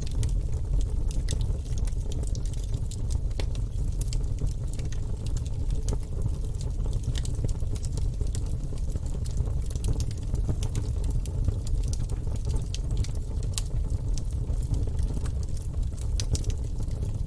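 Wood fire burning in a fireplace: a steady low rumble of the flames with frequent sharp crackles and pops from the logs.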